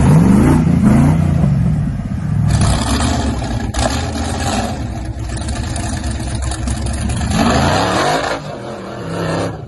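Rock-crawler buggy engines running under load and revving hard in bursts, the pitch sweeping up just after the start and again about seven and a half seconds in. There is a single sharp knock a few seconds in.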